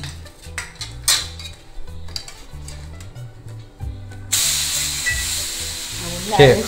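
A slice of bread topped with rava and curd batter sizzles on a hot ghee-greased tawa, batter side down. The sizzle starts suddenly about four seconds in. Before it, a spatula clinks a few times against steel plates.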